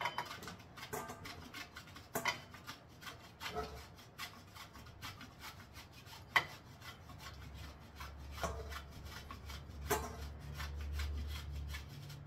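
Food block being rubbed down a worn handheld metal grater: repeated rasping strokes with a few sharper clicks between them.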